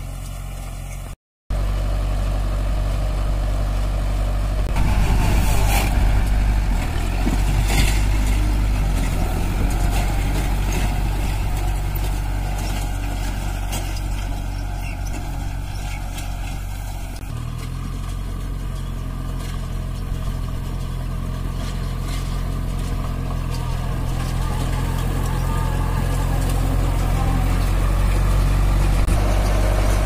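Kubota MU4501's four-cylinder diesel engine running steadily under load while pulling a round baler through straw, with a few sharp knocks. The sound cuts out briefly about a second in.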